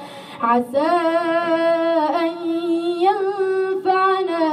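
A boy reciting the Quran in a melodic, chanted style, drawing out long, wavering held notes. A brief breath comes near the start.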